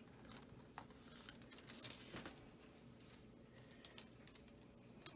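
Near silence: room tone with a few faint, light clicks and taps, most of them about two seconds in.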